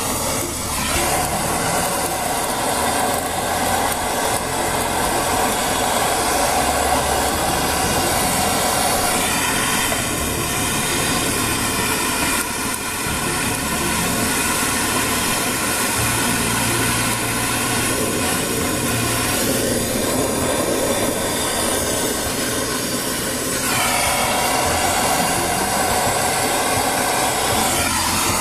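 Handheld gas torch flame hissing steadily into an offset smoker's firebox, lighting charcoal briquettes and lump charcoal. Its tone shifts a few times as the flame is moved.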